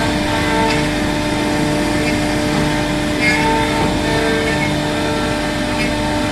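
CNC router running as it cuts wood: a steady spindle whine over the noise of the cut, with brief higher chirps every few seconds.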